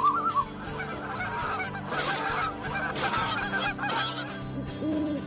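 Birds calling over sustained background music: a flock gives many overlapping short calls for a few seconds, and a single low hoot comes in near the end.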